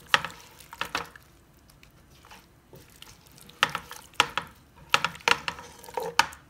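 Chicken pieces being stirred through thick tomato curry gravy in a large nonstick pot with a silicone spatula: wet squelching of the sauce with a series of sharp knocks and clicks of the spatula against the pot, a few near the start and a quicker cluster in the second half.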